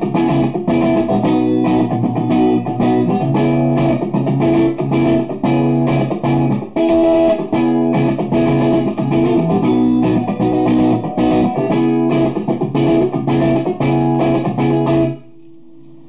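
Electric guitar on the neck humbucker of a Gibson Les Paul gold-top '57 reissue, played through a guitar amplifier. A repeated picked passage of single notes and chords that stops about fifteen seconds in, leaving the amp's low hum.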